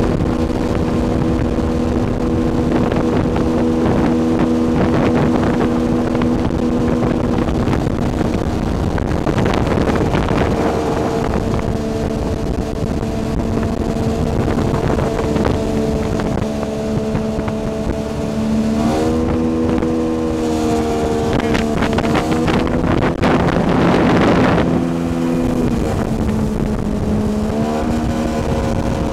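Jet-drive outboard motor running a jon boat at speed, a steady engine note over rushing wind and water. In the last third the pitch dips and rises several times as the throttle changes.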